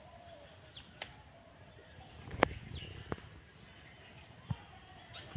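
Quiet rural outdoor sound with faint short bird chirps over a steady high-pitched tone. A few sharp clicks break through: a small one about a second in, a loud one about two and a half seconds in with another shortly after, and a dull knock near the end.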